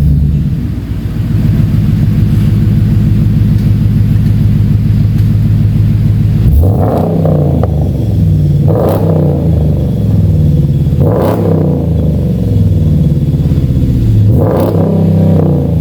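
Ram 1500's 5.7-litre V8 exhaust idling steadily for about six seconds, then revved four times, each blip rising and falling in pitch.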